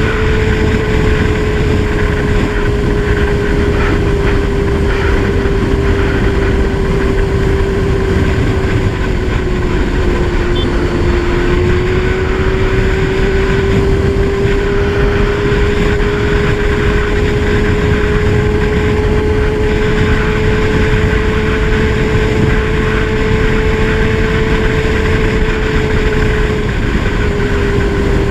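Kawasaki Z1000's inline-four engine running at a steady cruising pace, its note holding nearly constant, easing slightly about ten seconds in and back up again, with heavy wind and road rumble underneath.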